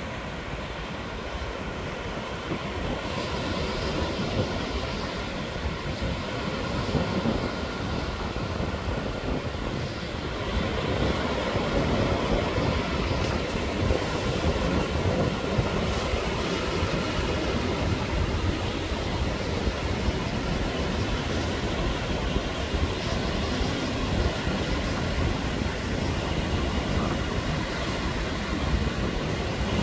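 Sea surf washing and breaking on a sandy beach, with wind rumbling on the microphone. It grows louder about ten seconds in and then stays steady.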